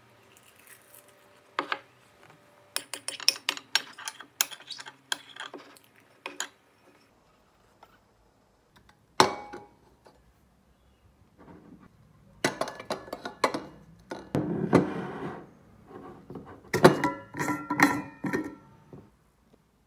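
Tableware being handled: light clicks of chopsticks and ceramic bowls, then a glass cup set down on a glass saucer with a sharp ringing clink about nine seconds in. More clinks and knocks follow as a pour-over coffee dripper is fitted onto the glass cup.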